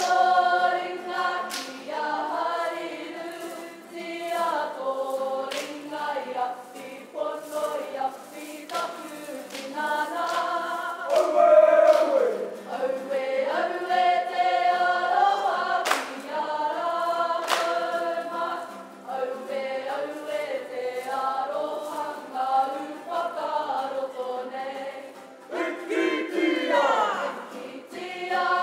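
Māori kapa haka group of mixed male and female voices singing an action song (waiata-ā-ringa) together, with a few sharp percussive strikes along the way. Near the end, a voice slides up and back down in pitch.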